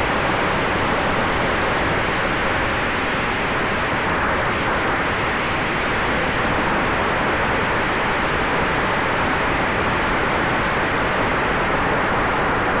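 Steady rush of wind over the onboard camera of an electric RC model plane (E-flite F4U Corsair) in flight, with a faint steady tone from its spinning propeller and motor.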